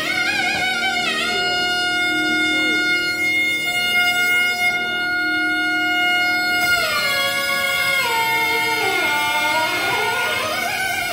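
A pair of nagaswarams, the long South Indian double-reed pipes, playing a Carnatic ragamalika in unison over a steady drone. They hold one high note for about five seconds, then slide down through a run of ornamented bends and curve back up near the end.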